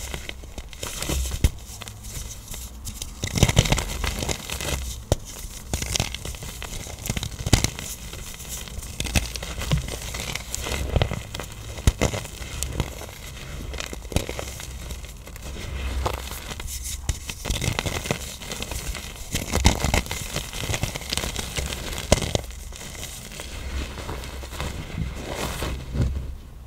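Firm blocks of black iron oxide powder being crushed: an irregular run of crunching and crackling, with sharper snaps every few seconds as the blocks break apart.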